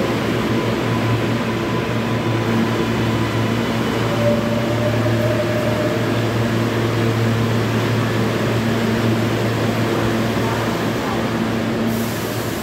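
Steady hum of a New York City subway L train's R143 cars standing in the station with doors open, their onboard equipment running with a low drone and a few steady tones.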